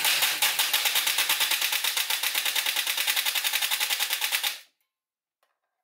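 Nerf Rayven pusher motor and rack-and-pinion gearbox running on battery power, the pusher clattering back and forth in a fast, even rhythm for about four and a half seconds, then stopping suddenly. The pusher is cycling in full auto, a test of the filed pinion and rack teeth.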